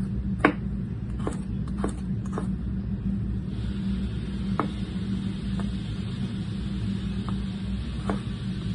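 Chef's knife chopping carrots on a wooden cutting board: a few quick chops in the first couple of seconds, then slower, spaced cuts. A steady low hum runs underneath, and a faint hiss joins about three and a half seconds in.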